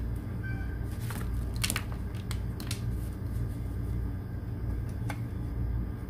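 Scattered sharp clicks and small handling knocks as a clamp meter and its test leads are picked up and readied, over a steady low background hum.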